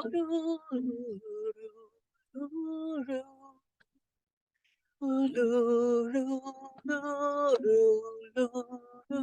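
Unaccompanied voice singing a slow chant in long held notes that step from pitch to pitch. There is a pause of over a second in the middle, and the second half is louder.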